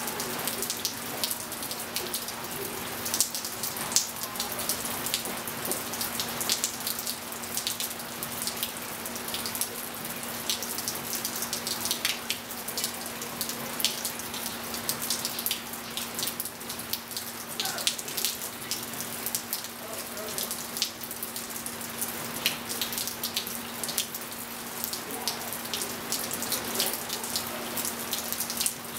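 Steady winter rain falling, with close, irregular drips and patters of drops on the wet patio and pool surround, over a steady low hum.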